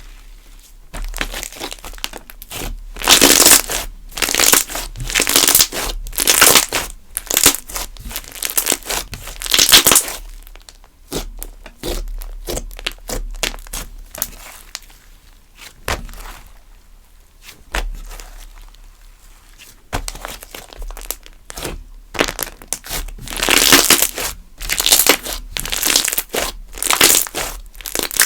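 Glossy slime being squished and stretched by hand, crackling and popping with trapped air in bursts. The crackling comes in two busy stretches of several seconds each, with quieter squishing between.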